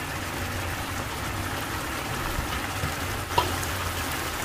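Starch-thickened crab and dashi sauce bubbling in a frying pan over high heat as the potato starch cooks through, with a single light tap about three seconds in.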